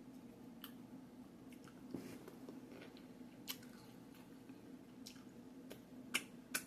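A person chewing a mouthful of crunchy taco close to the microphone: soft, scattered mouth clicks, with two sharper clicks about six seconds in.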